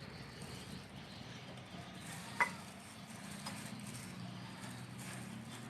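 Soft rustling of breadcrumbs as an egg-dipped bread roll is pressed and turned in them, with one sharp tap a little over two seconds in, over a steady low hum.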